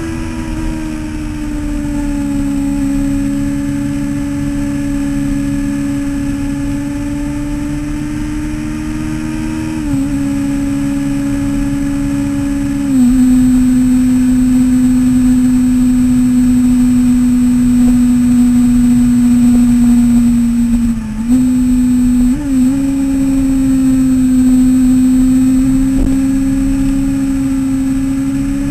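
Yamaha YZF-R6 sport bike's inline-four engine running at high, fairly steady revs under way, with wind noise. The engine note steps down about ten and thirteen seconds in, and dips briefly twice about three-quarters of the way through.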